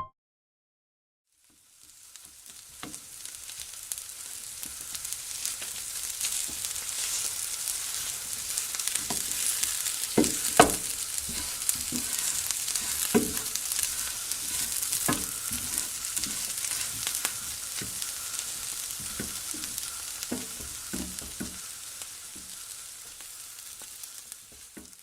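Stir-fry sizzling in a hot pan while it is stirred, with the cooking utensil knocking against the pan now and then. The sizzle fades in about two seconds in and fades out near the end.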